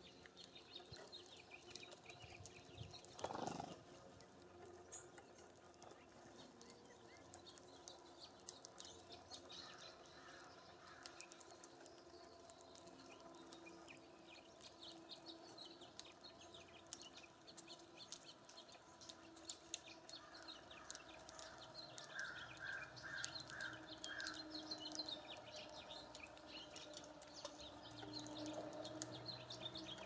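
Faint outdoor ambience at a bird feeder: small high clicks and ticks of finches pecking at seed, scattered through the whole stretch. There is a short louder call about three seconds in and a run of five quick notes about three-quarters of the way through.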